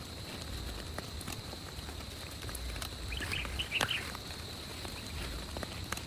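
Steady rain hiss with scattered drips tapping nearby, and a short run of high chirping calls a little after three seconds in.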